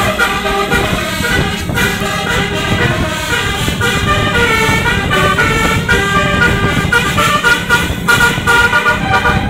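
A bus's telolet Basuri musical horn playing a tune of short notes that step up and down in pitch, over the steady running of the bus's engine.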